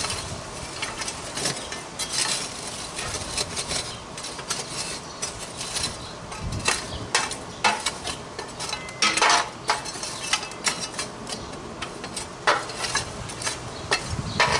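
Hot charcoal briquettes being shuffled and raked around in a barrel grill's firebox with a tool: irregular scraping, clinking and knocking, busiest about nine seconds in. The coals are being spread out to even the heat under a flaring fire.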